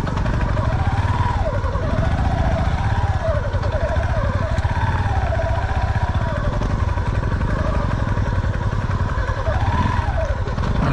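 Motorcycle engine running under load, its pitch rising and falling again and again as the throttle is opened and closed, over a steady low rumble.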